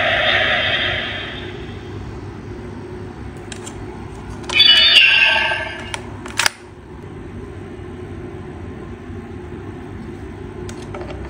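DX Blazar Brace toy's electronic sound effect fading out, then a short electronic tone sequence from the toy about halfway through, followed by a sharp plastic click. A few light plastic clicks near the end as a stone is handled at the brace.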